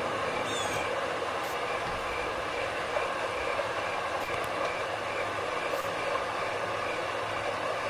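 Steady rush of a waterfall, a north-woods nature sound effect. A short bird chirp comes about half a second in, and a faint tone pulses about twice a second.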